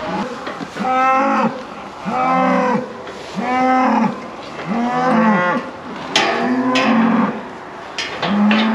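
Beef calves bawling repeatedly, about one call a second, each call rising and falling in pitch; the calves have been separated from their cows and are being penned into a race. A few sharp metal clanks from the steel hurdles and race come in partway through and near the end.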